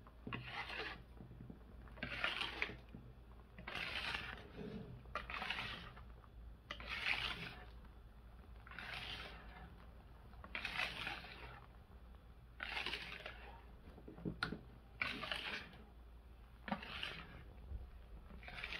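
Hand wire whisk gently folding beaten egg whites into sponge batter in a mixing bowl: a soft, wet swishing stroke about every two seconds, with a couple of light clicks near the end.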